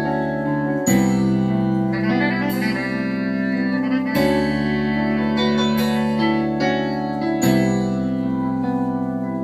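Instrumental intro of a karaoke backing track: sustained chords that change about every three seconds, with a few quick picked notes in the second and third seconds.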